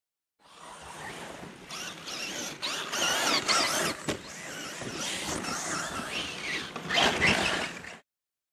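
Radio-controlled short-course truck driving over dirt: its motor whines, rising and falling with the throttle, over the scrabble of its tyres, loudest twice, about three and seven seconds in. The sound starts suddenly about half a second in and cuts off abruptly near the end.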